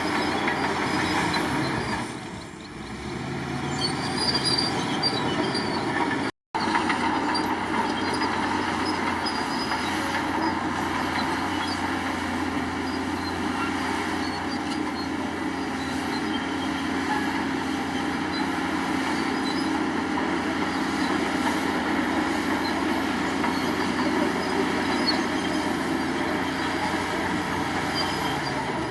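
Crawler bulldozer working: a steady diesel engine under load with track noise. The sound cuts out completely for an instant about six seconds in.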